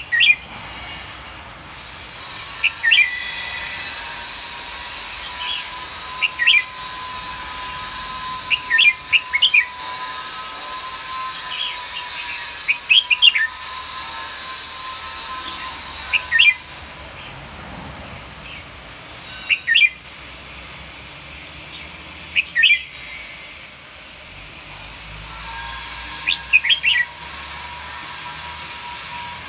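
Red-whiskered bulbul giving about a dozen short, sharp chirping song phrases a few seconds apart, over a steady faint hum.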